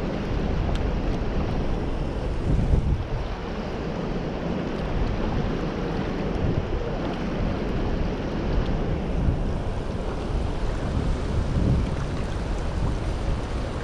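Steady rush of a fast-flowing river, with wind buffeting the microphone.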